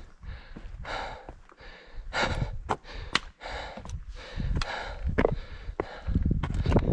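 Hiker breathing hard in repeated short breaths while climbing over rocks, with sharp clicks of a trekking pole tip and boots striking stone. A low rumble comes in near the end.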